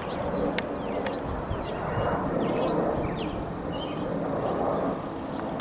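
A jet airliner passing overhead, its engines a steady rushing rumble that swells slightly midway. Small birds chirp repeatedly over it.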